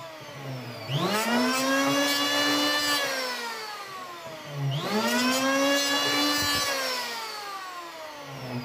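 Lotus 580-watt electric hand planer taking passes along a strip of wood. Its motor whines up to speed about a second in, runs for a couple of seconds, then is released and winds down with falling pitch. It spins up again about halfway through and winds down once more near the end.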